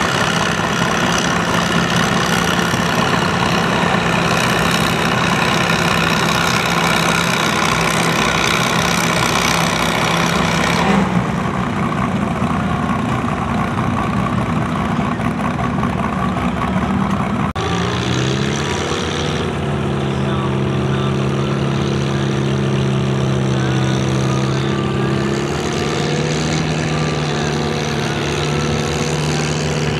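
Antique tractor engines in a tractor pull: one tractor's engine runs hard pulling the weight sled, then eases off about eleven seconds in. Later another antique tractor's engine revs up with a rising pitch and holds steady.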